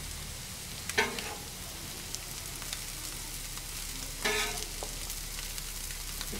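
Food sizzling steadily on a Blackstone steel griddle, with metal spatulas scraping and clanking on the griddle top as chopped carne asada is scooped up, sharply about a second in and again around four seconds in.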